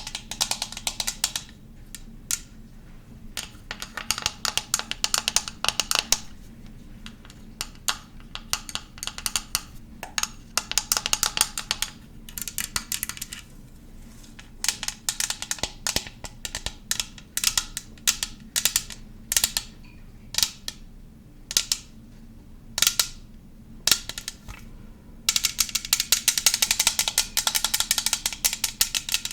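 Close-miked ASMR mouth sounds: rapid wet clicks and pops in fast flurries, with sparser single clicks in between.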